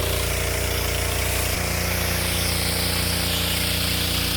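Tractor engine running steadily while working a rotary plow through the soil, its engine note shifting slightly about a second and a half in.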